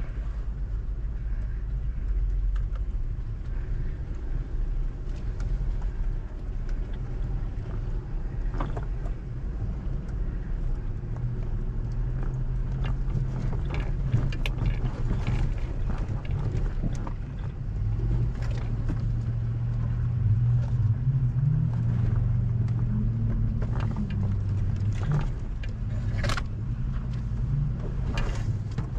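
Jeep Grand Cherokee Trailhawk engine droning at low revs while crawling a muddy off-road trail, rising in pitch for a few seconds about two-thirds of the way through and then dropping back. Scattered knocks and rattles run over it.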